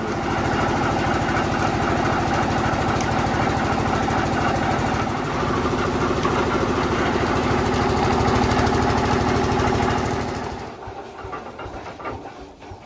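Engine-driven three-roller sugarcane crusher running steadily as cane stalks are fed through its geared steel rollers. The sound drops away sharply near the end.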